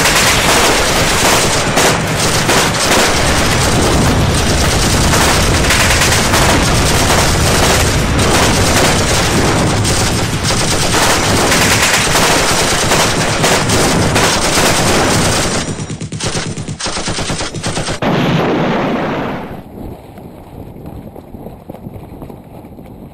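Dense, continuous automatic gunfire, very loud, that breaks up about 16 seconds in and ends just before 20 seconds. Much quieter outdoor noise follows.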